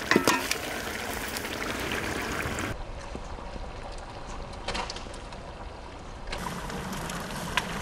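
Thick lobster masala simmering and bubbling in a steel pot over a wood fire, with sauce running off a ladle back into the pot and a few sharp clicks.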